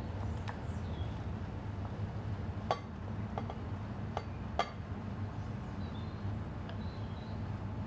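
Wooden spoon clinking against a glass mixing bowl while soft pâté is stirred and scraped out: about five short sharp clinks, most between three and five seconds in, over a steady low hum.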